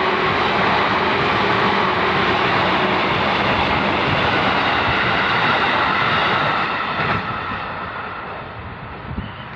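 KRL electric commuter train passing close at speed: a loud, even rush of wheels and running gear that starts to fade about seven seconds in as the train moves away.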